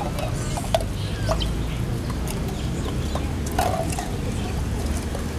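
Long-tailed macaques giving short squeaks and chirps, mixed with sharp clicks from plastic bottles being handled, over a steady low rumble.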